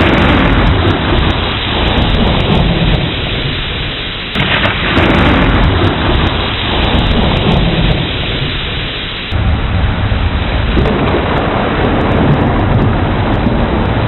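Thunderstorm: steady heavy rain with low rolling thunder. The rumble swells up suddenly about four seconds in and again about nine seconds in.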